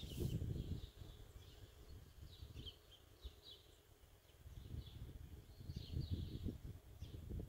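Say's Phoebe giving faint, short, high call notes, about half a dozen scattered through. They sit over a louder low rumble, which is strongest at the start and again in the second half.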